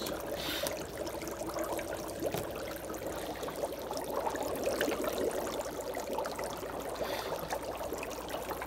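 Chopped dry ice bubbling in very cold water in a sink, a steady fizzing and gurgling with many small pops as the carbon dioxide gas comes off.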